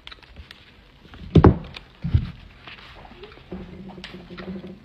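Someone quietly chewing a bite of ham sandwich. There are two dull low thumps, about a second and a half and two seconds in, and a steady low hum begins about three and a half seconds in.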